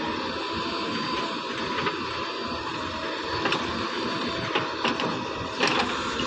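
A small motor whirring steadily, with a few short clicks in the second half.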